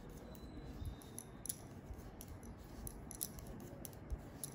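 Knitting needles clicking faintly and irregularly against each other as purl stitches are worked, with a soft rustle of wool.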